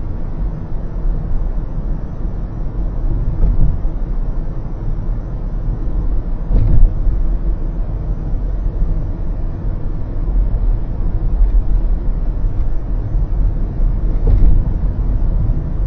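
Steady low road and tyre rumble heard from inside a car at expressway speed, with two brief thumps, about seven and fourteen seconds in, as the tyres cross the elevated road's expansion joints.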